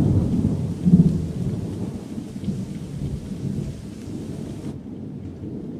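Low rolling rumble like thunder, strongest about a second in and slowly fading, over a faint hiss that cuts off near the end. It is a dramatic sound effect laid over the scene.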